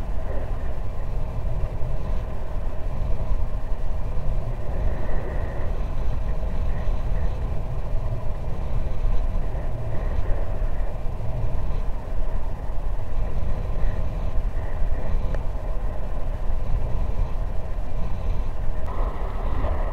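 Continuous wind rumble buffeting the microphone of a high-altitude balloon's payload camera, loudest in the deep low end with faint steady hum tones above it. The noise turns brighter and hissier near the end.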